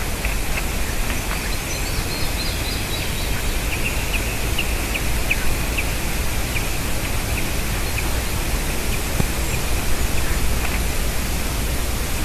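Short, sharp, high bird call notes repeated at irregular intervals over a steady hiss of outdoor background noise.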